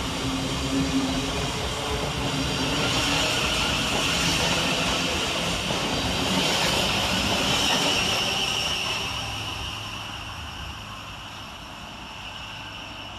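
Thameslink Class 700 electric multiple unit running along the track, a steady rumble and hiss of wheels on rail that builds over the first several seconds and fades away from about nine seconds in.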